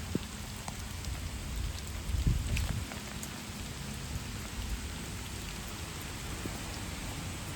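Steady rain falling, with scattered drops ticking, and a brief low rumble about two seconds in.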